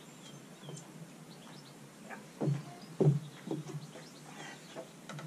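A few sharp knocks and clicks, the loudest about three seconds in, as a road bike clamped in a turbo trainer is handled and mounted. Small birds chirp faintly in the first second.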